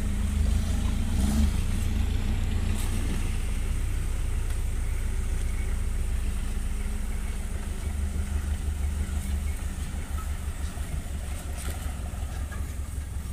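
Engine of a Land Cruiser hardtop running with a steady low rumble, taking on a faint pulsing beat in the second half.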